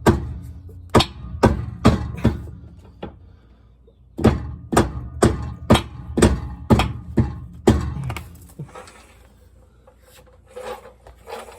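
Rubber hammer tapping a new rear shock absorber into place on its mount. There are about a dozen dull strikes, roughly two a second, in two runs with a short pause between them. Rubber is used so as not to damage the shock's cartridge.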